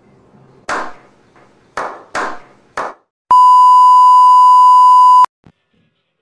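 Four sharp struck sounds, each dying away quickly, then a loud, steady TV test-pattern beep held for about two seconds that cuts off abruptly.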